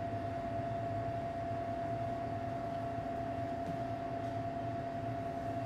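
Steady, even hum with one constant mid-pitched tone over a low rumble and hiss.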